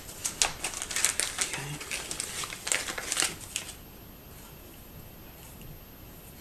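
Crinkling and rustling handling noise, a quick run of sharp crackles and clicks for about three and a half seconds that then stops.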